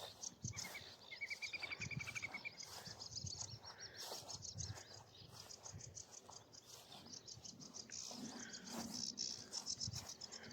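Songbirds singing in the open: a fast, even trill of repeated notes about a second in, over a continuous rapid high-pitched chattering.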